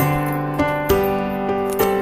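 Background music: a slow, gentle keyboard or piano melody with sustained chords, a new note struck about every second.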